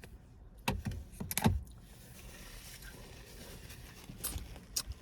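A few short clicks and knocks from small objects being handled, about a second in and again near the end, over a faint steady hiss.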